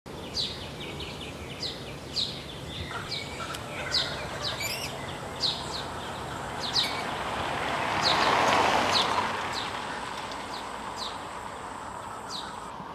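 Birds calling: short, high, downward-sliding chirps repeated every second or so over a steady background hiss, with a rushing sound that swells and fades about eight to nine seconds in.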